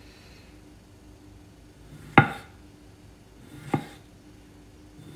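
A kitchen knife slicing through a tomato, its blade knocking on the wooden cutting board twice, about a second and a half apart.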